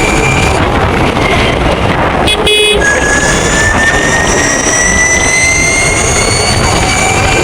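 Ather 450X electric scooter on the move: loud wind and road rush, with the electric motor's high whine rising slowly as it speeds up. About two and a half seconds in, a horn toots briefly.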